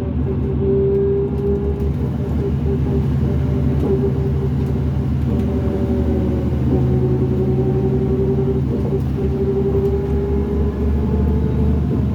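Interior of a 2005 New Flyer D40LF transit bus under way: its Cummins ISL diesel running with a steady low drone, over which a steady whine breaks off briefly a few times.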